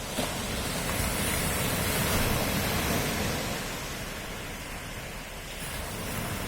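Ocean surf: a wave swells and breaks about a second in, then washes back and fades over the next few seconds.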